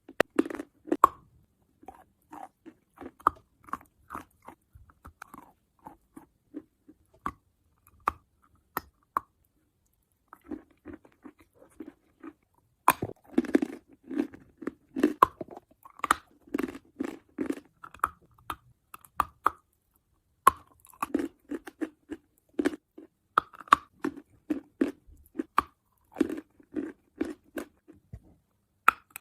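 Someone chewing crunchy food close to the microphone: sharp crisp crunches and rhythmic chewing, with a short pause near the middle.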